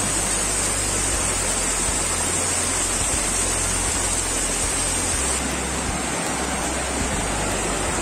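Steady rushing of water from a tall jungle waterfall, about 100 m high, and the rocky stream below it: an even, unbroken hiss.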